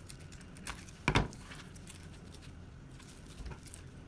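Scissors cutting a strip of Velcro: small snips and rustles, with one louder knock about a second in.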